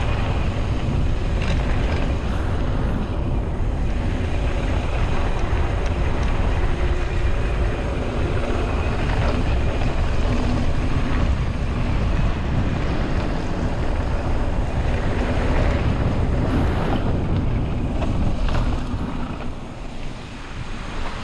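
Wind buffeting the microphone during a mountain-bike ride, a loud steady rush with a deep rumble, broken by scattered clicks and knocks from the bike on rough ground. It eases somewhat near the end.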